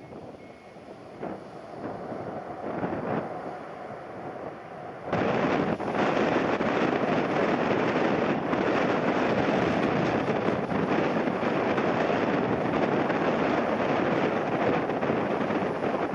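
Strong gusty wind buffeting the microphone, jumping suddenly to a much louder, steady rush about five seconds in.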